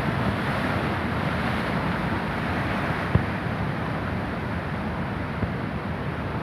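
Heavy surf of a rough, storm-agitated sea, a steady rush of breaking waves with wind buffeting the microphone. One short knock about three seconds in.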